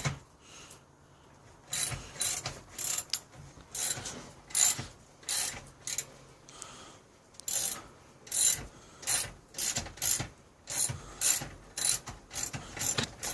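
Hand ratchet wrench clicking in repeated back-and-forth strokes while working a bolt, about one to two strokes a second, with a short pause near the start.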